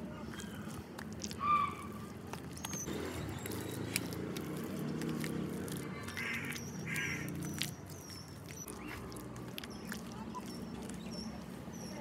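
Small birds chirping, a short high chirp repeated every second or so through the second half, with a couple of louder calls about six and seven seconds in, over a low steady background rumble.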